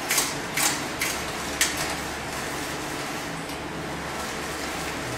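A screwdriver working on a bicycle's rear derailleur makes four short scraping clicks in the first two seconds, over a steady room hum.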